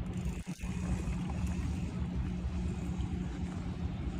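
Steady low rumble of wind buffeting the microphone at the ocean shore, with surf behind it; it drops out briefly about half a second in.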